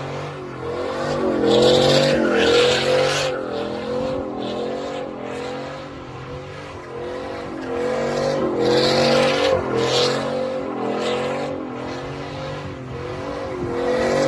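Loud truck exhaust running, its pitch rising and falling unevenly. It swells louder twice, a couple of seconds in and again about two-thirds of the way through.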